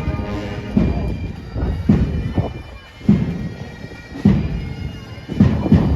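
Marching band music from a passing parade: a bass drum beats about once a second under steady, sustained wind-instrument tones.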